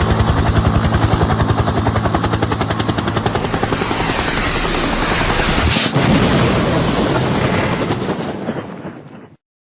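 Helicopter crash sound effect: rapid, even rotor chop, then a sharp impact about six seconds in, followed by rougher rotor noise that fades and cuts off abruptly shortly before the end.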